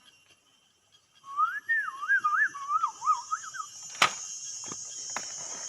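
A warbling whistle sliding up and down for about two and a half seconds, then a few sharp clicks, over a steady high insect drone.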